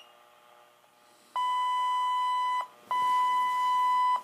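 Motorola Minitor V fire pager sounding its dispatch alert tones: two long steady beeps of about a second and a quarter each, with a short gap between them. They are the paging tones that open a fire call before the dispatcher's voice.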